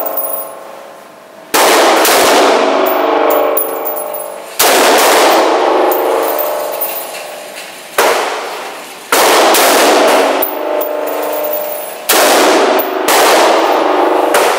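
AR-15 rifle fired in slow single shots, about five over the stretch, a few seconds apart, each sharp report followed by a long ringing echo off the walls of an indoor range.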